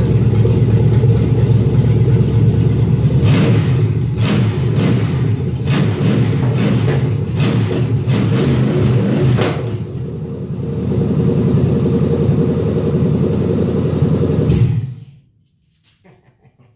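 Carbureted LS V8 running on a Daytona Sensors Smart Spark LS ignition while its idle is being set, with a string of about ten sharp cracks between about three and ten seconds in. The engine shuts off about fifteen seconds in.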